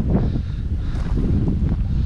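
Wind blowing across the microphone: a loud, steady low rumble.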